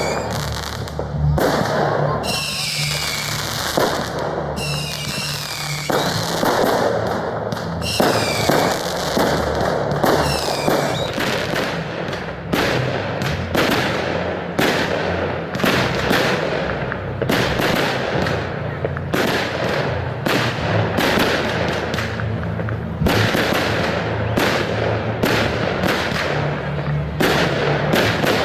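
Fireworks display: a dense run of sharp bangs and crackling shell bursts, one after another. In the first ten seconds or so, high falling whistles sound over a steady high tone.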